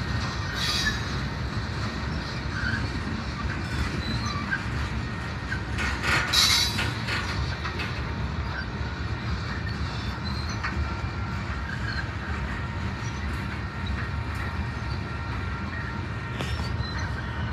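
Freight cars rolling past close by: a steady rumble of steel wheels on rail, with faint wheel squeal throughout. About six seconds in there is a louder high-pitched squeal, and near the end there are a few sharp wheel clicks.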